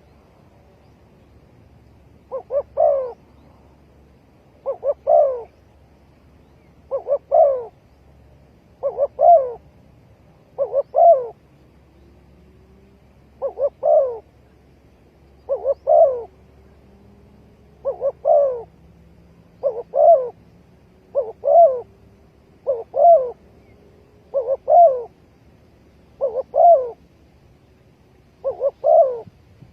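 Spotted dove cooing: a phrase of a couple of quick notes and then a louder coo, repeated about every two seconds.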